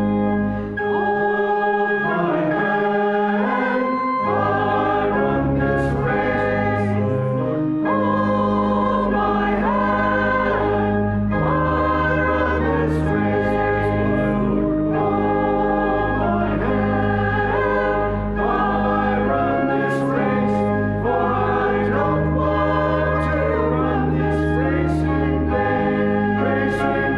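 A group of voices singing with organ accompaniment, the organ holding sustained bass notes that change every few seconds.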